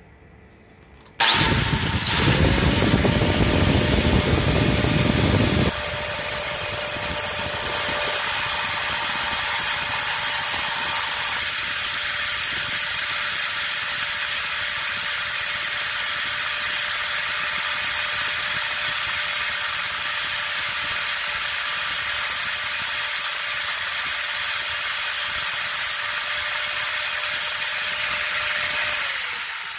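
Angle grinder switched on about a second in, whining up to speed and running steadily while a twist drill bit is held against its abrasive disc and ground, throwing sparks. Near the end it is switched off and its whine falls as the disc winds down.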